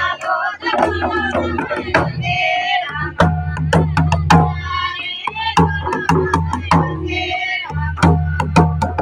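Music: a singing voice over drum beats and a steady deep bass line, the bass dropping out briefly a few times.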